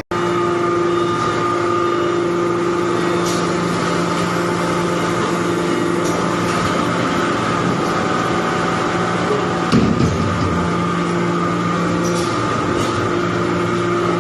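Metal shavings baler running: a steady machine hum with several held tones, and a brief louder rattle about ten seconds in.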